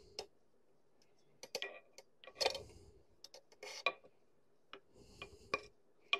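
A screwdriver tip scraping and clicking along the edge of a milling machine's cast-iron casting, working off old paint, in short irregular strokes with a few louder scrapes in the middle.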